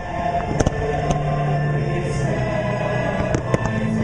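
A choir singing with orchestral music from the fireworks show's loudspeaker soundtrack, sustained and steady. Fireworks shells crack and pop over it, a couple of times about half a second to a second in and several more near the end.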